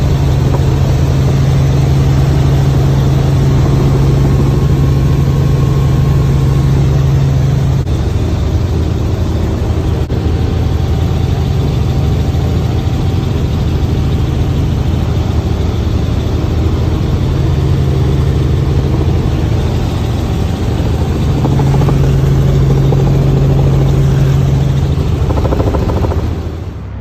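Cabin noise of a light helicopter in flight: the engine and rotor running in a steady, loud drone with a strong low hum. The noise drops suddenly near the end.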